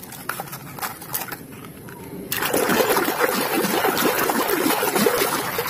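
Light clicks and rattles of plastic toys being handled in a plastic basket, then about two seconds in, loud, steady splashing and churning as a muddy toy fire truck is swished in the water to wash the mud off.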